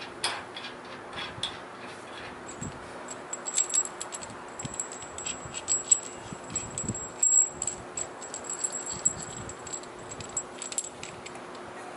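Small steel parts (bolts, nuts, washers) clinking and rattling in the hands as they are fitted to a truck frame's rear suspension mount, with irregular light metallic clicks and a few louder knocks around the middle.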